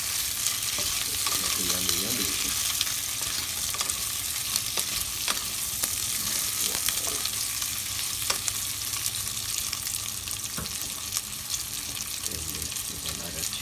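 Meat and sliced onion sizzling as they fry in a pot, with a wooden spatula stirring them and now and then clicking against the pot. The hiss is steady throughout.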